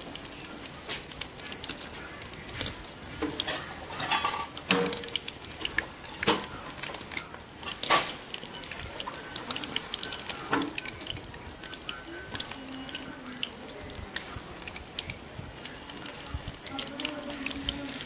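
Egg pakoras deep-frying in hot oil in a steel kadhai: a steady sizzle with scattered crackles and pops, and a few louder clicks.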